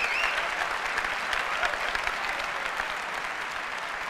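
Large keynote audience applauding, with a few whistles near the start. The applause slowly dies down.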